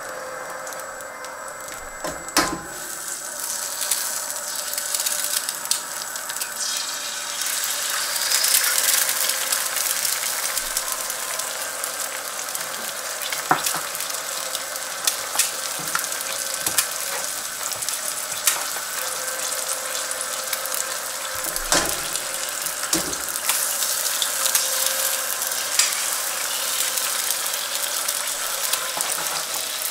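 An egg frying in hot bacon fat in a carbon steel pan, a steady sizzle that grows louder about eight seconds in, when the first egg goes in. A few sharp knocks now and then.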